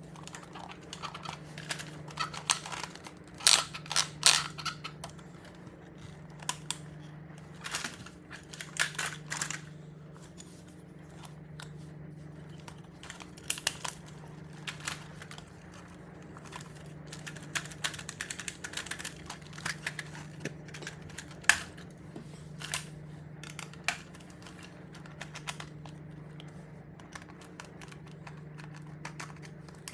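Irregular clicks, taps and light rustling of hands handling a plastic toy robot and its packaging, with a few louder clusters of clicks. A steady low hum that swells and fades in even pulses runs underneath.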